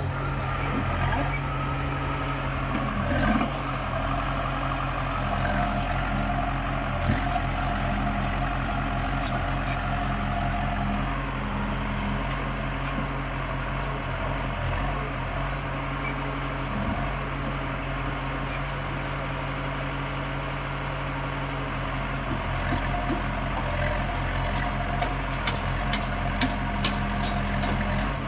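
Diesel engine running steadily at a low, even speed, with a few short clicks over it.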